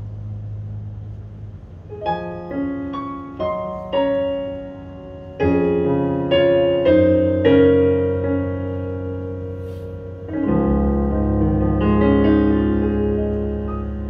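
Kurzweil SP2X digital stage piano playing the slow closing bars of a ballad. Single notes come in about two seconds in, a fuller chord follows near the middle, and a low final chord about ten seconds in rings and slowly fades.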